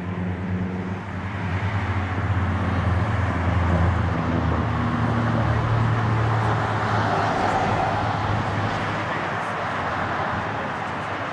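Boeing 787 jet airliner on final approach, its engines a steady rushing noise that swells and stays up. Underneath, a low steady hum, like a nearby road vehicle's engine, fades away about five seconds in.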